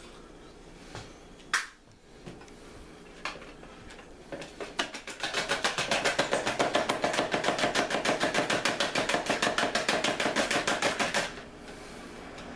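Raw eggs being beaten with a metal fork in a plastic tub: fast, even strokes about seven a second, starting about four to five seconds in and stopping abruptly near the end. A single sharp knock comes about one and a half seconds in.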